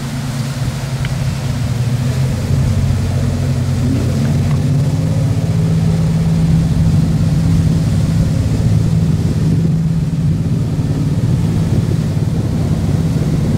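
Sportfishing boat's engine running at a steady low drone, its pitch rising a little about four seconds in, with a light hiss of wind and water.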